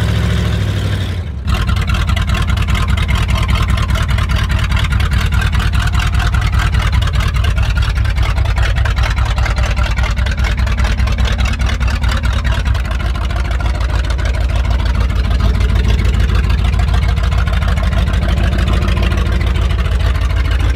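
Chevrolet K5 Blazer's engine running with a rapid, even pulsing exhaust as the truck is driven for the first time after a transfer case install, with a brief break about a second in.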